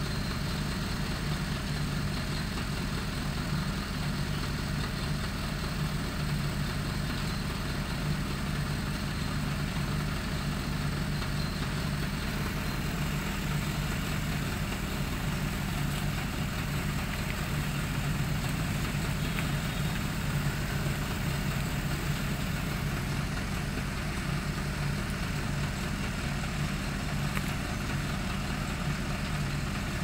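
Steady low mechanical hum, like an idling engine, running unchanged throughout.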